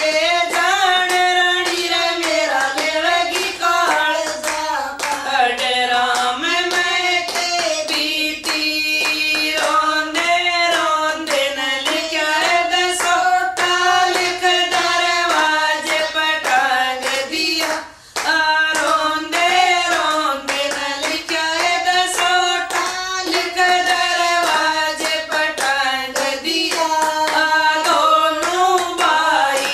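Women singing a Haryanvi devotional bhajan together, with steady hand-clapping keeping the beat. The singing and clapping break off briefly a little past halfway.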